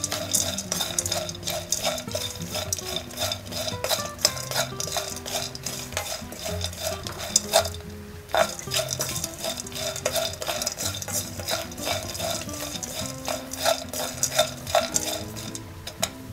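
A wooden spoon stirs and scrapes chopped peanuts and walnuts around a nonstick frying pan as they toast. It is a quick, irregular rattle of light clicks, with a brief pause about halfway. Background music plays underneath.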